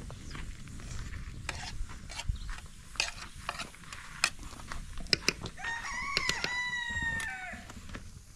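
A rooster crows once, starting a little past halfway: a pitched call of about two seconds, held fairly level and then falling away at the end. Before and under it come scattered sharp clicks and knocks, like cooking utensils against a pot.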